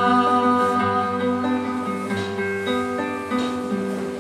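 Classical guitar playing the closing chords of a song, the notes ringing on and slowly fading.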